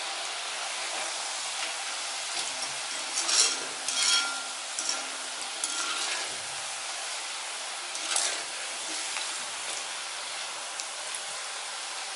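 Samai rice fingers deep-frying in hot oil in a cast-iron kadai, a steady sizzle, with a wire spider skimmer stirring through them and clinking against the pan a few times, most sharply about 3, 4 and 8 seconds in.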